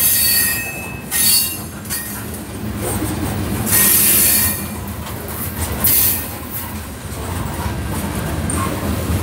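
Freight train of covered hopper cars rolling past at close range: a steady low rumble of wheels on the rails, broken by several bursts of high-pitched wheel squeal, the longest about four seconds in.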